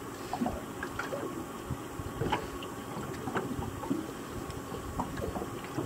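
Water lapping and splashing at the side of a small fishing boat, with light knocks and handling noises, as a just-short fish is let back into the water.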